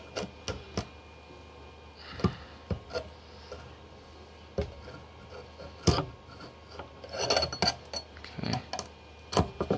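A scraper scratching and tapping in a resin printer's vat as cured resin pieces are worked loose and lifted off the bottom: irregular clicks and short scrapes, busier near the end.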